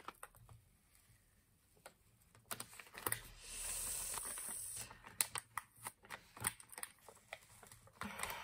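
Paper backing being peeled off a large adhesive photo sticker on a planner page: scattered small crinkling clicks as the paper is handled, with one longer, steady peeling hiss from about three and a half to five seconds in.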